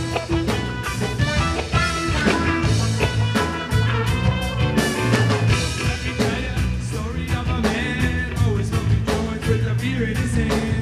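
A band playing the instrumental opening of a song, with guitar, a steady bass line and a regular drum beat.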